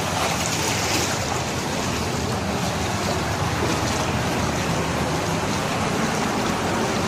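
Steady rush and slosh of shallow floodwater across a street.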